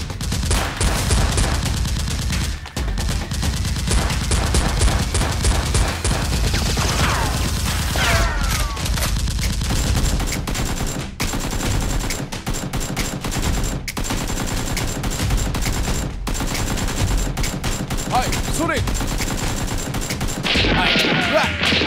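Dubbed-in gunfire sound effects: continuous rapid automatic fire and volleys of shots, with a few short gliding sounds about a third of the way in and again near the end.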